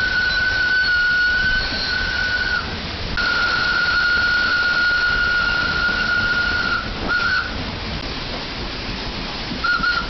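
Steam whistle of a WP class steam locomotive, heard from the cab: two long steady blasts of about three seconds each, then a short toot about seven seconds in and another at the very end, over a constant rushing noise.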